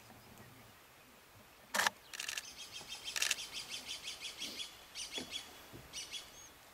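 A short, sharp sound about two seconds in, then a bird calling in fast chattering runs of high notes for about four seconds.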